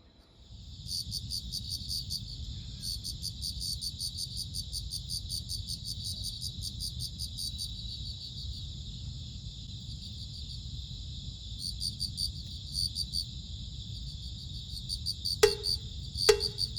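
Crickets chirping in rapid pulsed trains over a steady low rumble, with three sharp knocks about a second apart near the end.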